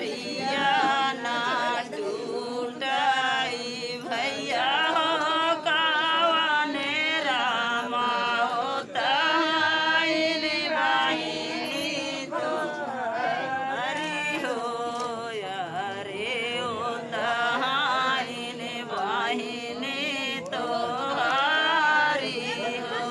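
Several voices singing together in a chant-like style, the melody wavering up and down.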